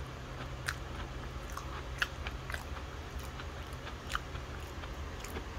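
Crisp Fox's biscuits crunching: four or five sharp snaps and crunches about a second apart, over a low steady hum.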